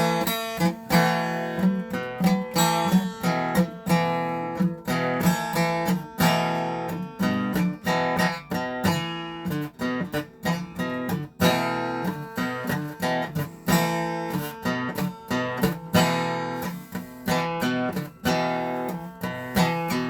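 Acoustic guitar playing a strummed instrumental intro in a steady rhythm, with no singing.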